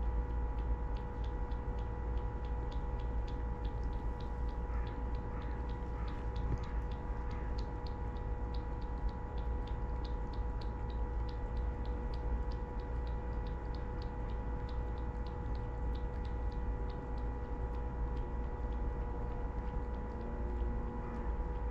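Steady ticking, a few times a second, over a low steady rumble and a constant hum; the ticking stops about seventeen seconds in.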